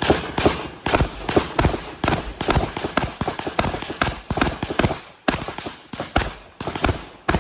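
Rapid shotgun fire during a timed stage: a long string of sharp shots, about two to three a second with some quick pairs, each with a short echo.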